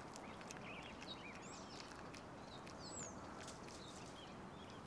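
Faint outdoor ambience with small birds chirping in many short, quick rising and falling calls, and a few light clicks.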